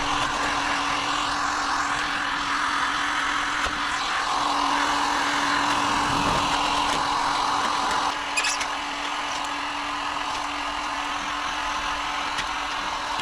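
A power tool running steadily, a constant whirring with a low hum under it. About two-thirds of the way through there is a brief clatter, and then it runs a little quieter.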